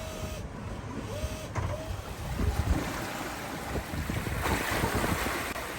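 Wind buffeting the microphone and water rushing past the hull of a sailboat under sail, with a louder swell of hissing spray a little past four seconds in.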